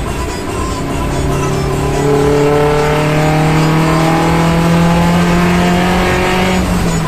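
A vehicle engine accelerating, heard from inside a van's cabin as it overtakes a bus. The engine's pitch climbs slowly for several seconds, then falls away near the end.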